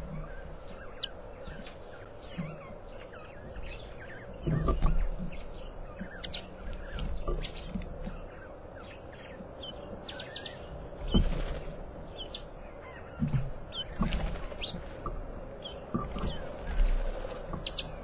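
Many small birds chirping and twittering, with short calls overlapping throughout. Several low thumps stand out as the loudest sounds, about 4 seconds in, 11 seconds in, twice around 13 to 14 seconds, and near the end. A faint steady hum sits underneath.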